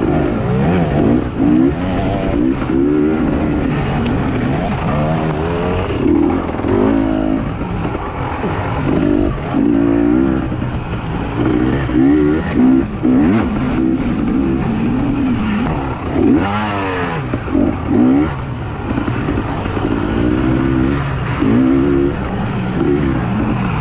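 Racing engines running hard, their pitch rising and falling over and over as they accelerate and back off. Several engines overlap.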